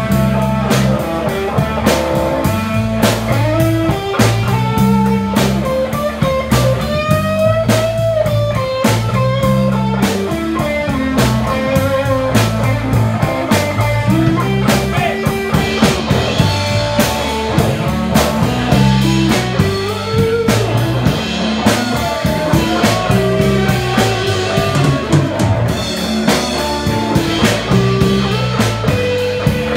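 Live band playing a blues-rock song: electric guitar with gliding, bent lead notes over bass guitar and a drum kit keeping a steady beat.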